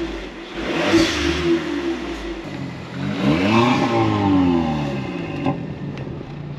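VW Polo Mk5 engine revving through an exhaust with a resonator delete pipe, its pitch rising and falling a few times.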